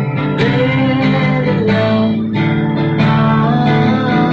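A man singing while strumming a steel-string acoustic guitar.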